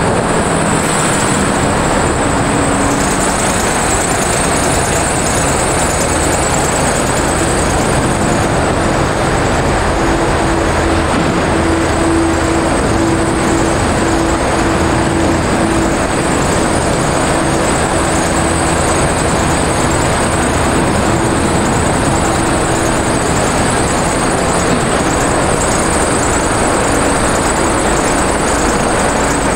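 City street traffic: a steady, unbroken wash of passing motor vehicles, with a steady hum that holds for about fifteen seconds in the middle.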